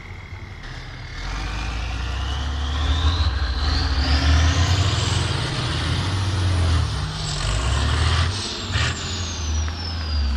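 A heavy off-road truck's diesel engine working hard at full throttle up a steep dirt slope, a deep rumble that grows louder about a second in. Over it a high whine climbs steadily in pitch for several seconds, then falls away.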